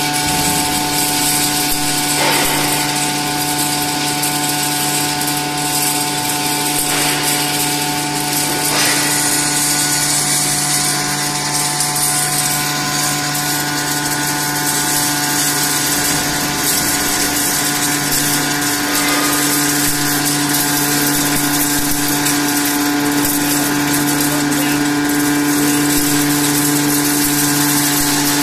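Soybean grinding mill running steadily while soybeans feed from its hopper into the grinder. It gives a constant hum and whine over a high hiss.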